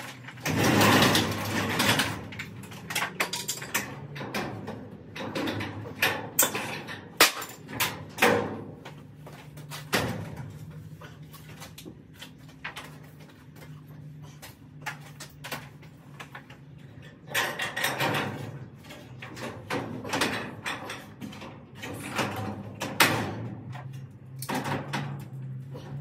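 Steel sectional garage door rattling and clanking in its metal tracks, with a string of sharp knocks and scrapes and a loud clatter about a second in. The door is hanging crooked in its tracks.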